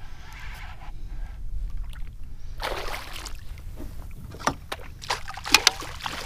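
Knocks and scrapes on a Hobie fishing kayak with water splashing, as a freshly landed fluke is handled on deck. A string of sharp knocks comes in the second half, the loudest pair about five and a half seconds in.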